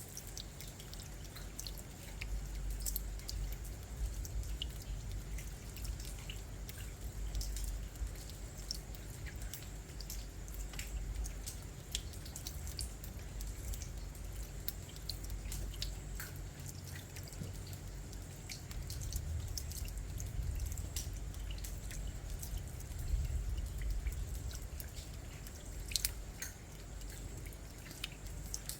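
Rain falling, heard as many irregular drips and patters landing close by, over a steady low rumble and a faint high steady tone.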